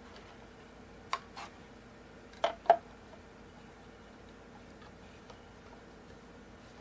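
Light clicks and taps of small guitar hardware and a screwdriver being handled: a pair about a second in and a louder pair about two and a half seconds in, over a faint steady hum.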